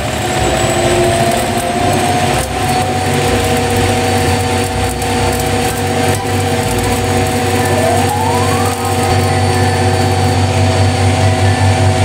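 Front-loading washing machine running a fast spin, the drum and motor giving a steady hum and whine. About eight seconds in, a short rising whine climbs in pitch.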